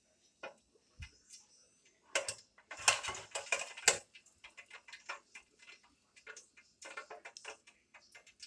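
Fries crackling and popping in hot oil in a mini deep fryer, a steady run of small irregular pops. About two to four seconds in comes a louder burst of sizzle and metal clatter as the wire fry basket is lifted out of the oil.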